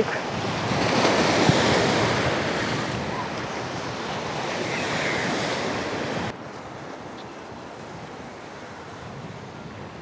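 Choppy sea surf breaking and washing, in swelling surges, with wind buffeting the microphone. About six seconds in it cuts abruptly to a quieter, steady wash of the sea.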